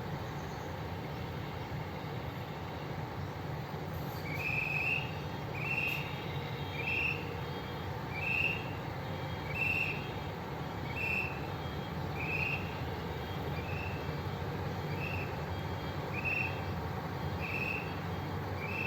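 Tour bus diesel engine idling as a steady low hum. From about four seconds in, a short rising high chirp repeats roughly once a second.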